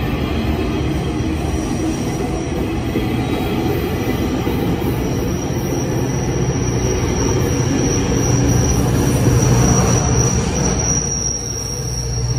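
GO Transit bilevel passenger coaches rolling past on the rails with a low rumble, and a steady high-pitched wheel squeal from about five seconds in. Near the end the hum of the MP40PH diesel locomotive grows as it comes alongside.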